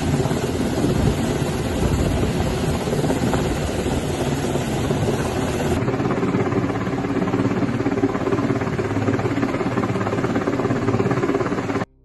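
A Coast Guard MH-60 Jayhawk helicopter's rotors and twin turbine engines running, a loud, steady din. The sound changes slightly about six seconds in and cuts off abruptly just before the end.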